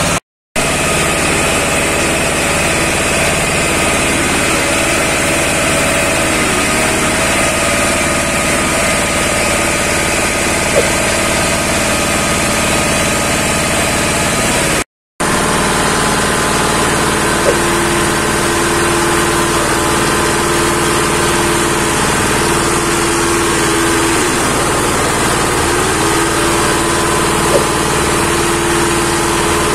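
Single-cylinder diesel engine running steadily, driving a wood grinding mill that turns scrap wood offcuts into sawdust. The noise is broken twice by a split-second gap.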